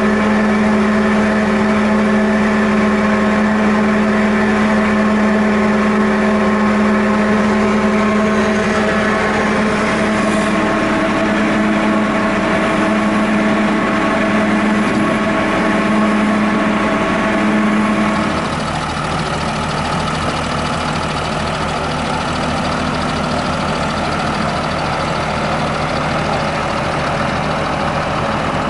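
Steyr 8130 Turbo tractor's diesel engine running and driving the yarder's winch drums as they reel in wire rope: a steady mechanical whine over the engine. About 18 seconds in, the whine stops and the level drops, leaving a lower, rougher engine note.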